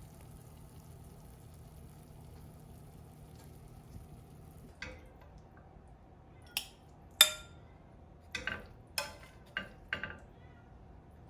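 Kitchen utensils clinking and knocking against dishes, about seven sharp clinks in the second half, the loudest about seven seconds in, over a low steady hum.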